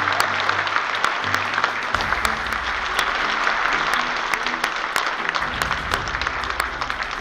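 Audience applauding steadily, over background music with a moving bass line.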